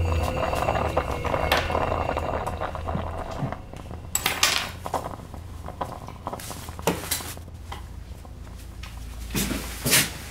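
Background music fading out over the first few seconds, then several short bursts of handling noise: small tools and objects clinking on a wooden table and a cloth bag rustling as things are gathered up.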